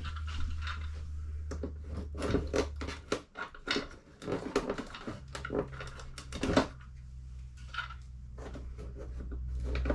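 Irregular clicks, knocks and scrapes of hands handling electrical wiring and a receptacle box, over a steady low hum that cuts out a few seconds in and returns slightly higher in pitch.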